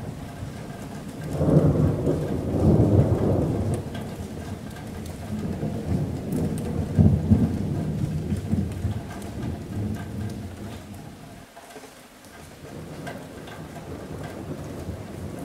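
Rolling thunder over steady rain on a metal roof. The low rumble swells about a second and a half in, peaks again around seven seconds, then dies away, leaving the rain.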